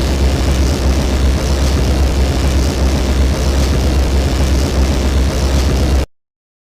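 Exaggerated toilet-flush sound effect: a loud, steady rumbling roar that cuts off abruptly about six seconds in.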